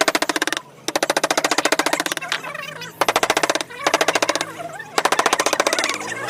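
Bursts about a second long of rapid, even tapping, roughly fifteen strikes a second, with short pauses between them: a reciprocating power carving chisel cutting into wood. Background music plays underneath.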